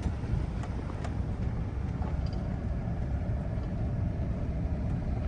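A car driving, heard from inside: a steady low rumble of engine and road noise.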